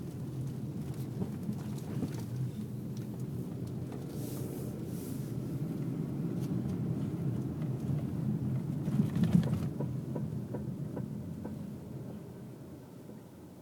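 2002 Toyota RAV4 on the move: a steady low road-and-drivetrain rumble that builds, peaks about nine seconds in, then eases off near the end as the car slows, with faint scattered knocks. The owner puts the knocking down to the rear drum brakes, even with new pads and drums.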